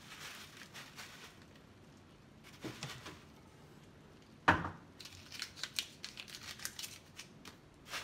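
Clear plastic bag crinkling as it is handled, with one sharp knock about halfway through, followed by a run of quick crinkles and clicks.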